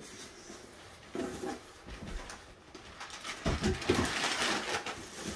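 Clear plastic wrapping on a boxed foot massager crinkling and rustling as it is handled, getting louder in the second half. Two brief vocal sounds, about a second in and around three and a half seconds.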